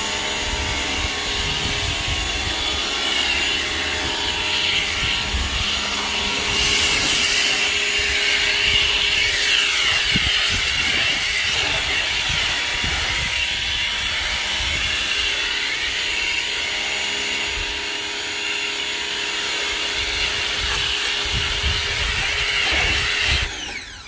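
Ryobi 1600 PSI electric pressure washer running steadily, its motor and pump humming under the hiss of soap foam spraying from the foam cannon attachment. The sound cuts off abruptly near the end.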